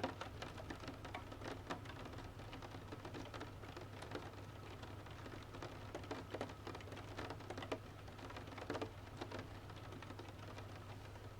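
Wood fire crackling with irregular sharp pops and snaps, over a steady patter of rain, with a low steady hum underneath.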